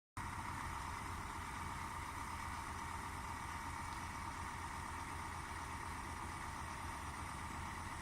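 An engine or machine running steadily with a low hum.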